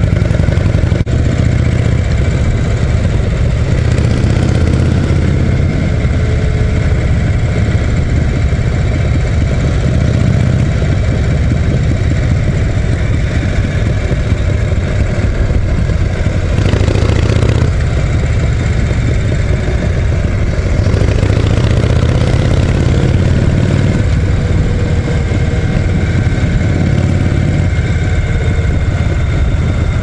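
Harley-Davidson Shovelhead V-twin engine running steadily as the motorcycle cruises along the road, heard from the handlebars. A short rush of noise comes about seventeen seconds in.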